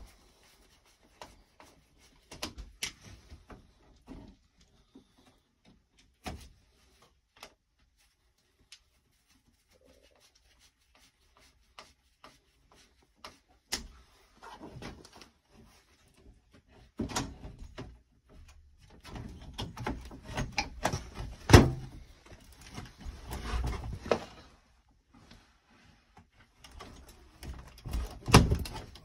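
Clicks, scrapes and knocks of hand work inside an electrical panel, as a main breaker is seated and its wires are tightened with a screwdriver. Sparse at first and busier in the second half, with one sharp knock about two thirds of the way through.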